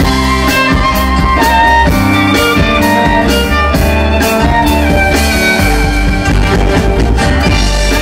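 Live band music: an instrumental passage with guitar, violin, bass and a drum kit keeping a steady beat.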